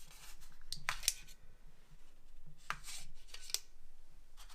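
Hands working and shaping soft pastry dough: a few short, soft rustles and rubbing swishes, clustered around a second in and again near three seconds.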